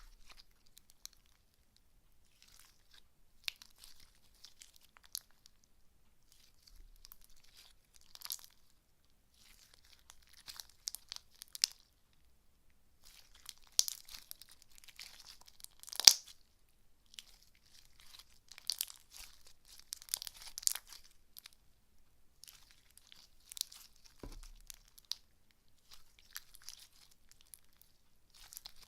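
Slime being squished and pulled by hand, crackling and crunching in irregular bursts, with one sharp pop about halfway through.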